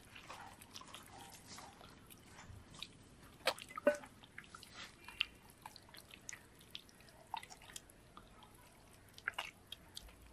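Faint wet squelching and sticky clicks of hands rubbing a yoghurt-based spice paste into a whole raw chicken, with a few sharper clicks around the middle and near the end.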